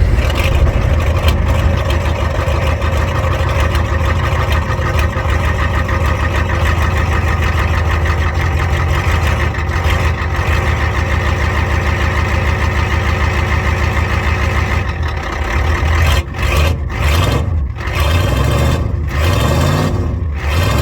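Ford 6.9 IDI V8 diesel running just after a cold start, given a little throttle, its injection pump soaked overnight in ATF. The engine runs steadily and loud.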